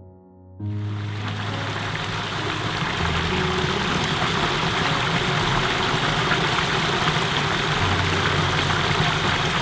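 Water spilling over a small wooden-stake weir, a steady splashing rush that starts about half a second in.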